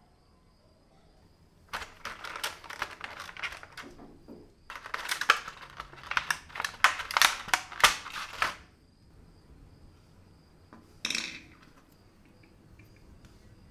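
Clear plastic blister packaging crinkling and crackling as small model parts are pulled out of it: two spells of rapid crackles a few seconds each, and one short crackle near the end.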